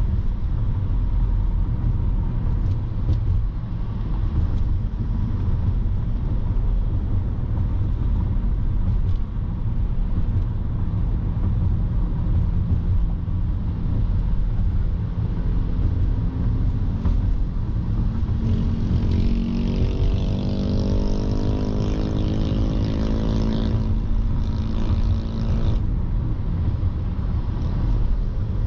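A car driving on the road, with a steady low rumble of tyre and road noise. About halfway through, an engine note climbs in pitch for several seconds and then cuts off sharply.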